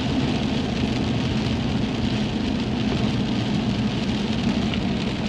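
Steady heavy rain, with a low steady hum of a running vehicle underneath.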